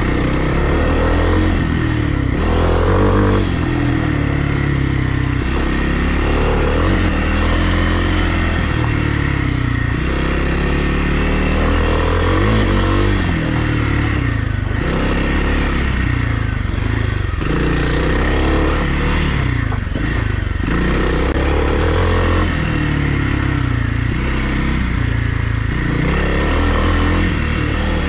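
Kawasaki KLX300R dirt bike's single-cylinder four-stroke engine under way, its revs rising and falling over and over with the throttle, with some clattering from the bike now and then.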